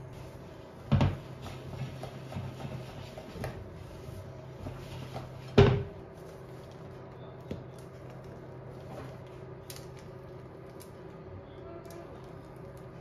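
Kitchen handling noises: a sharp knock about a second in, then a louder clank with a short metallic ring about halfway through as a metal baking tray is set down on the counter, with small knocks and rustles between, over a steady low hum.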